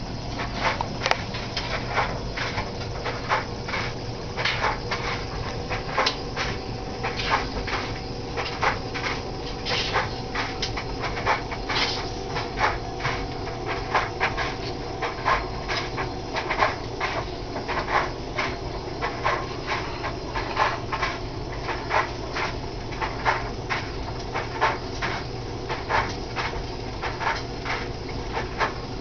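Homemade thermoacoustic Stirling engine running. Its glass-syringe power piston puffs and clicks in a steady, roughly regular rhythm, over a faint steady tone.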